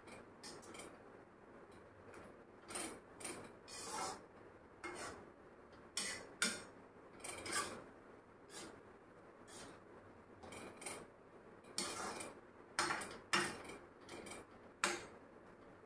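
A metal ladle scraping and clinking against a metal kadai as Maggi noodles are stirred, in irregular strokes.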